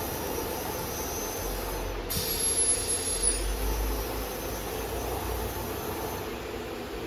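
CNC machine with automatic labelling running: a steady mechanical hum and hiss, with a short high whine that falls in pitch about two seconds in and a low rumble through the middle.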